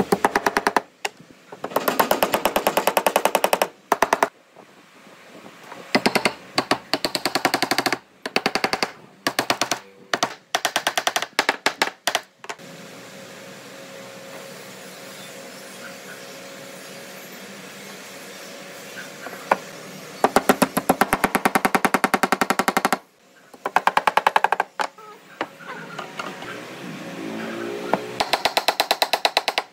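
Woodworking power tool running in short bursts, each a fast, even rattle of strokes lasting a second or two, with a stretch of steadier, quieter running in the middle.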